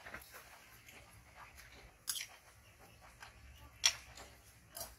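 Noodles being eaten: quiet chewing and mouth sounds, with three sharp clicks about two, four and five seconds in.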